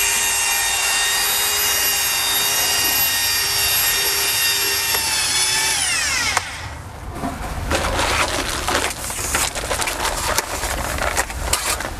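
Electric drill with a paddle mixer stirring mortar in a bucket: a steady high whine that winds down and stops about six seconds in. After that come irregular scraping and knocking sounds as the mortar and tools are handled.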